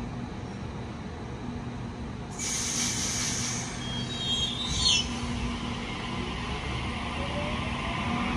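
Sydney Trains Waratah double-deck electric train pulling away from the platform: a steady electrical hum, a short hiss about two seconds in, then the traction motors' whine rising in pitch from about six seconds in as it starts to accelerate.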